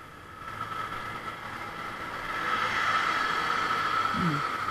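Motorcycle riding noise: the bike's engine and wind on the bike-mounted camera, with a steady whine. It grows louder about halfway through as a large truck comes close alongside.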